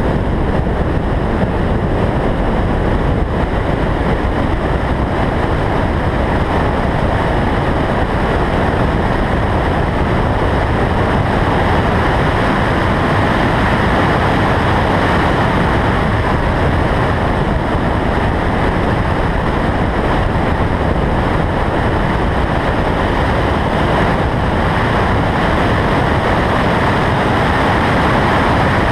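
Steady rush of wind over a roof-mounted camera on a car at track speed, blended with road and car noise, swelling slightly in the middle.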